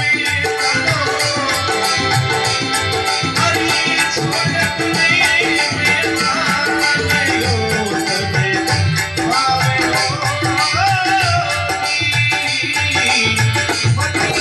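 Marwari devotional bhajan music: a steady percussion beat under a melodic line that bends and glides in pitch.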